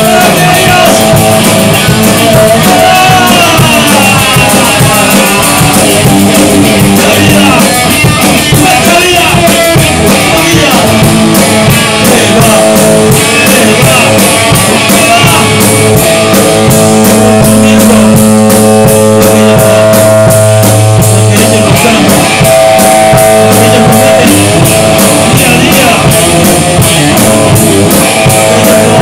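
Loud rock music from a band, with guitar and drum kit.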